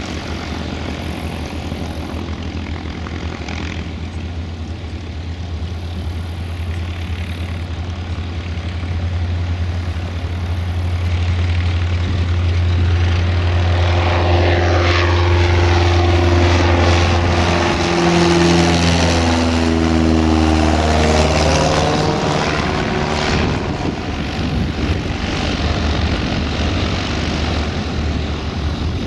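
Cessna 172's piston engine and propeller at full takeoff power, the drone growing louder as the plane lifts off and climbs past, its pitch falling as it goes by, then slightly quieter as it climbs away.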